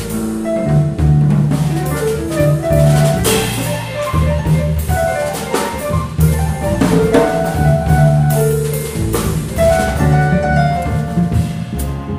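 Jazz piano trio playing live: grand piano, upright double bass and drum kit, with the drums and cymbals prominent over walking bass notes and piano chords.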